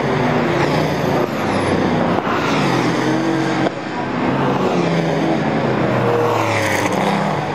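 Racing cars' engines passing at speed on a circuit: a Jaguar E-type coupé goes by close at the start, and more cars follow. Their engine notes overlap, rising and falling as they pass.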